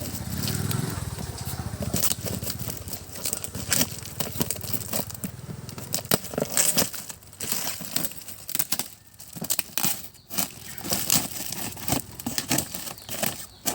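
Packaging being torn and handled as a shipping carton is unpacked: irregular crinkling, crackling and tearing sounds.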